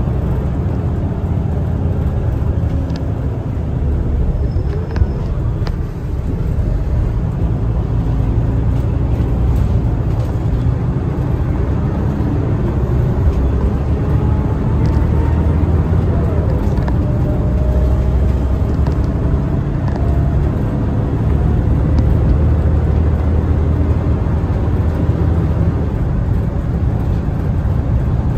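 City bus under way, heard from inside the passenger cabin: a steady low engine and road rumble, with a faint whine that rises in pitch now and then as the bus gathers speed.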